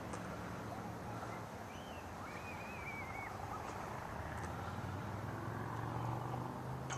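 Quiet outdoor ambience with a steady low hum of a distant engine, and a short wavering high-pitched call about two to three seconds in.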